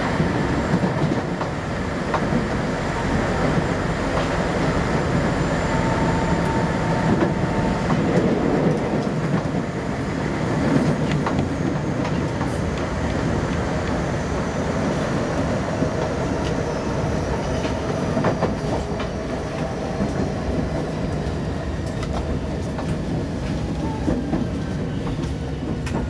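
Running sound of a Tokyo Metro 05 series electric train, with clicks of the wheels over rail joints. A faint whine falls slowly in pitch in the second half as the train gradually slows.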